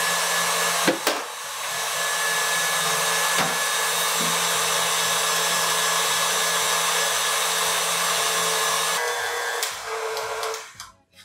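KitchenAid stand mixer motor running steadily as it whisks a marshmallow mixture of egg-white meringue and gelatin to cool it, with a few sharp knocks in the first seconds. The mixer winds down and stops near the end.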